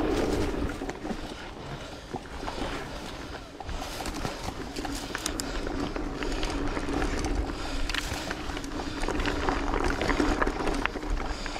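Mountain bike rolling along a dirt and gravel trail: many small rattles and clicks from the bike and loose stones over a steady hum.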